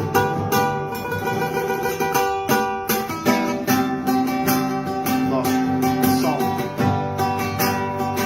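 Acoustic guitar (violão) strummed in a steady rhythm, playing an instrumental passage of a gospel worship song without singing.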